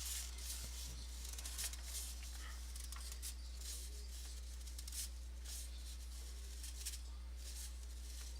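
Quiet room with a steady low electrical hum and a few faint, short clicks and rustles of small handling noise.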